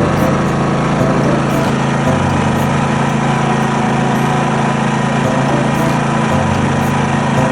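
Portable generator's small engine running steadily at constant speed.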